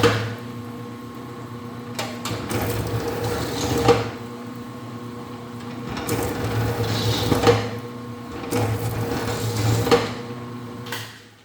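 Four-roller copper wire stripping machine running: a steady motor hum that swells in louder stretches as wire feeds through the rollers, with sharp knocks every couple of seconds. The machine goes quiet near the end.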